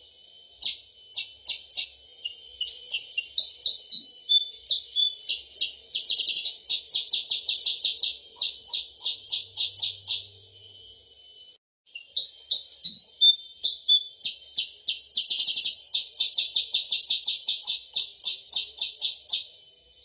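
Kutilang sutra (silver-eared mesia) song used as a bird-trapping lure call: long series of high, sharp chirps that speed up into rapid trills, in two runs with a brief break about eleven seconds in. A faint steady high hiss lies under it.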